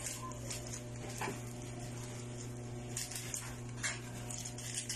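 Cooking utensil scraping and tossing sotanghon noodles in a pan, a few short scrapes and clicks about a second in and again around three and four seconds in, over a steady low hum.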